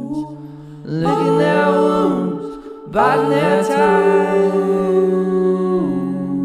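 Background music: a song with a sung vocal in two long phrases of held, bending notes over sustained low chords.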